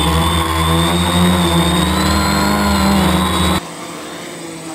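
Small electric quadcopter's motors and propellers running loudly close up, several pitched tones wavering a little, over a hiss of water spray as it skims the pond surface. About three and a half seconds in the sound drops suddenly to a quieter, more distant motor hum.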